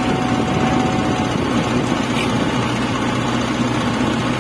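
Engine of a Hanta F1740C mini asphalt finisher running steadily while the machine spreads hot-mix asphalt.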